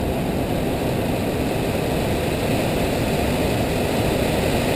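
Steady rushing noise inside an airliner cockpit flying through heavy rain, with airflow, engines and rain on the windshield blended into one even sound, mostly low in pitch.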